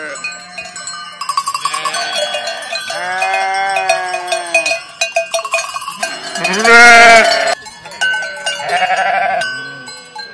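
Flock of sheep wearing metal neck bells: the bells clank irregularly while sheep bleat several times, the loudest and longest bleat about seven seconds in.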